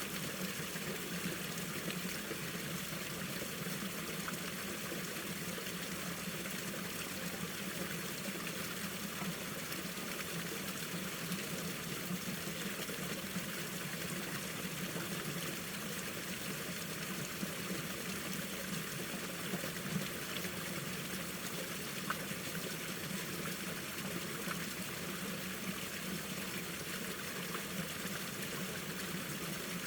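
Mountain stream water flowing and trickling over rocks, a steady rushing with small splashes.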